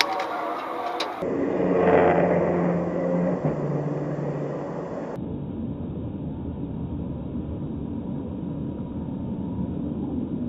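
Steady road and engine noise of a car driving at highway speed, heard from inside the car through a dashcam. The sound changes abruptly about a second in and again about five seconds in.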